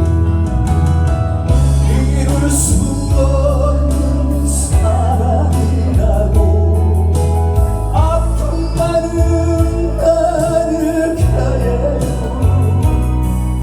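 Music: a song with a steady bass beat and a sliding melody line over it.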